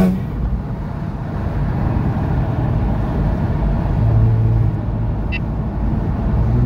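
Exhaust and engine drone inside the cabin of a 2019 Kia Stinger GT2 with its 3.3-litre twin-turbo V6 on an aftermarket HFC downpipe, midpipe and MBRP Pro Series catback, running at a steady low pitch under road noise while driving. The engine note swells briefly about four seconds in and again near the end.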